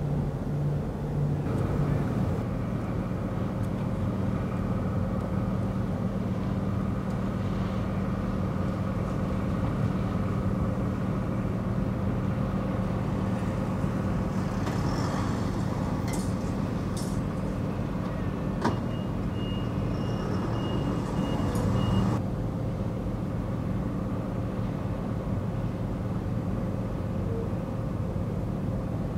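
Steady low engine drone with outdoor background noise. Through the middle a louder vehicle-like sound joins it, with a few clicks and a high steady tone near the end of that stretch, then cuts off sharply about two-thirds of the way through.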